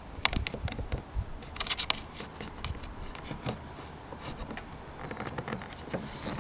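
Volvo V70 fuel filler flap being pushed in and pulled at by hand while it stays stuck: an irregular run of small plastic clicks, taps and scrapes.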